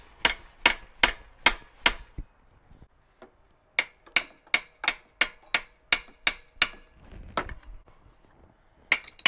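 Hammer striking the stuck original water pump of a 3.5L V6 to knock it free: quick runs of sharp, ringing metal-on-metal blows, about three a second, in two bursts with a pause between and a few more blows near the end.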